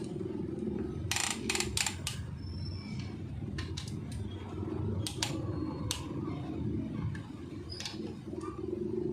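Scattered sharp metallic clicks and clinks of hand tools and engine parts being handled during engine assembly, a quick cluster of several about a second in and single ones later, over a steady low hum.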